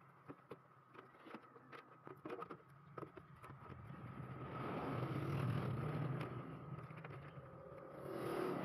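Small clicks and knocks of a motherboard and screws being handled and fitted into a PC case. These are followed by a louder rush of noise that swells for a few seconds and fades, then rises again near the end.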